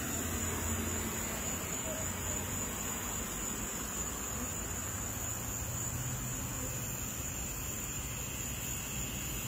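Honey bee swarm buzzing as the cluster is brushed off a tree trunk and into a hive box, over a steady high-pitched whine and a low hum.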